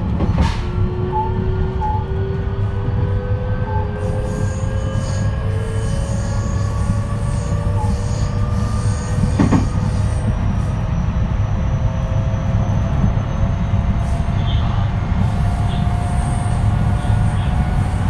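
JR West 223 series 3000-subseries electric train running, its Hitachi third-generation IGBT VVVF inverter and traction motors whining in several tones that climb slowly in pitch as it gathers speed, over a steady rumble. A single sharp click comes about halfway through.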